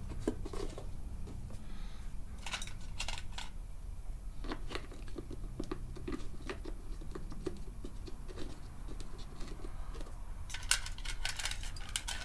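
Plastic timing belt cover of a Subaru EJ25 engine being pressed into place by hand: scattered clicks and scrapes of plastic and rubber gasket against the engine, with a quick run of clicks near the end.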